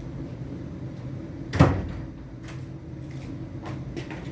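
A single hard knock about one and a half seconds in, followed by a few faint clicks, over a steady low hum.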